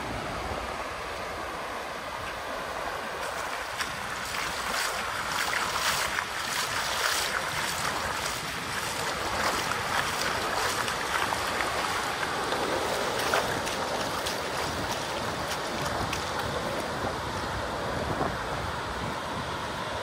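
Surf washing on a shore, a steady rushing hiss that grows busier and crackling for several seconds in the middle, with wind on the microphone.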